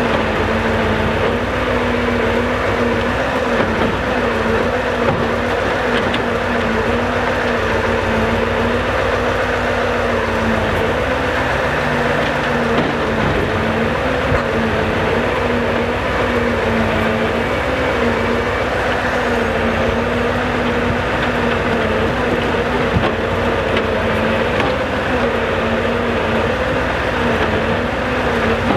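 Scania R650's 16-litre V8 diesel running steadily at raised revs to drive the timber crane's hydraulics, its pitch wavering slightly as the crane works, with a few faint knocks of logs.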